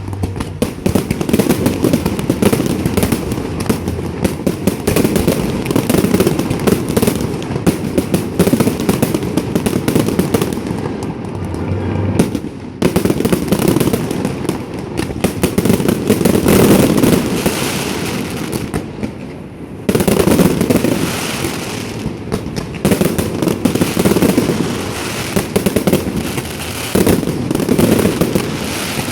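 Fireworks display: a dense, continuous barrage of booms and crackling, easing briefly about twelve seconds in and again just before twenty seconds, then picking up again.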